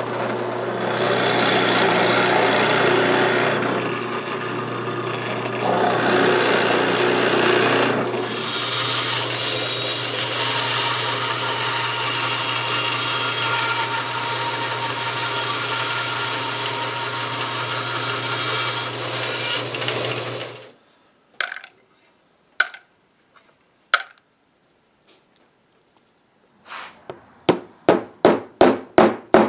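A drill press cutting into a wooden board with its motor humming, then a bandsaw slicing through the board, both running steadily until the saw stops about two-thirds of the way in. After a few scattered knocks, a hammer taps a wooden plug into a hole in oak, about eight quick, evenly spaced taps near the end.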